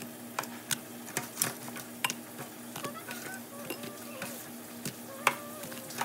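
Metal tongs clicking and tapping against a glass bowl as fried chicken wings are dropped and turned in a thin sauce, with small wet sloshes. The knocks come irregularly throughout.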